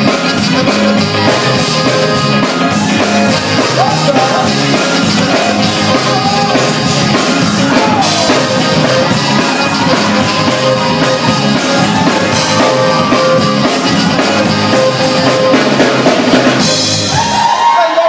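Live band with drum kit, electric guitar and a singer, playing loud. Near the end the band stops and the crowd starts cheering.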